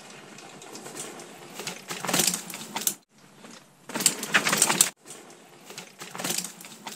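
Mountain bike tyres rolling over dry fallen leaves and dirt, crackling and crunching in three louder passes, two of which cut off abruptly.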